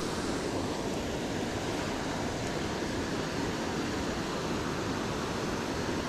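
Steady rush of a waterfall, an even noise that holds constant.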